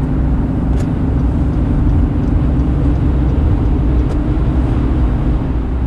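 Steady low rumble of a car's engine and tyres at highway speed, heard from inside the cabin, with two faint ticks about a second and four seconds in.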